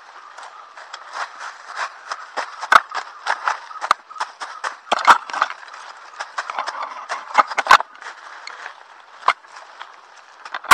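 Footsteps crunching through dry bamboo leaf litter and grass, brushing past dry stalks, with irregular sharp cracks and snaps of dry twigs.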